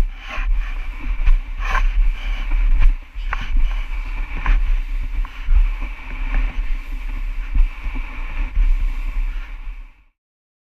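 A motor running steadily with a heavy low rumble and a constant high whine, with scattered knocks over it; it cuts off suddenly near the end.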